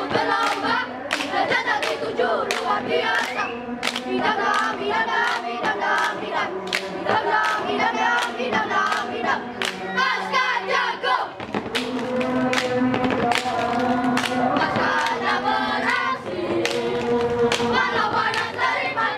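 A group of young boys sings and chants a scout cheer (yel-yel) in unison, punctuated by many sharp hand claps. From about halfway through, the voices hold longer, steadier notes.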